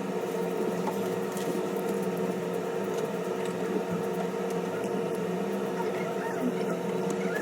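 A steady machine hum with a few faint light clicks over it.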